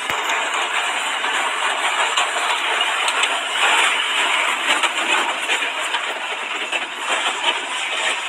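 Pickup truck driving across dry dirt ground: steady engine and tyre noise, a little louder about halfway through.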